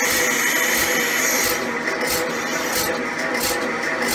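Small portable electric milking machine's vacuum pump running steadily, building vacuum with the teat cups capped. From about one and a half seconds in, a regular pulsing hiss comes in, a few times a second.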